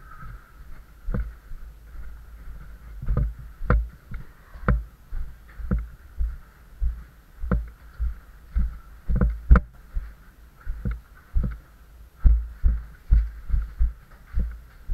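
Footsteps of a caver walking over a rocky cave floor: boots thudding on rock at a steady walking pace, with sharp clicks on some steps.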